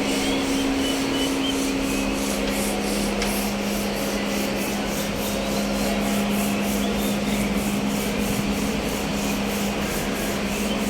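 Kubota B1500 compact diesel tractor running, a steady rough mechanical noise over a constant low hum, the drivetrain sound being checked for a transmission noise problem. A second, slightly higher hum drops out about two and a half seconds in.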